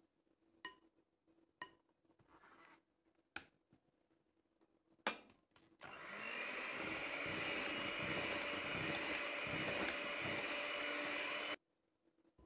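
A few light knocks against a glass mixing bowl, then an electric hand mixer runs steadily for about six seconds, beating cake batter, and cuts off suddenly.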